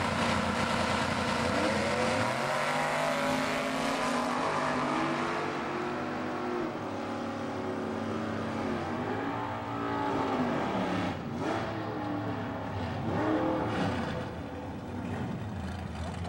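Two Chevrolet drag cars launching off the start line and running down the strip, their engines revving up through each gear and dropping at every shift, growing fainter as they pull away.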